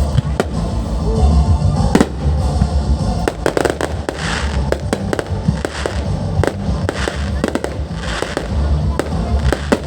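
Fireworks going off: a dense, irregular run of sharp bangs and crackles, thickest about four seconds in and again near the end, with music playing underneath.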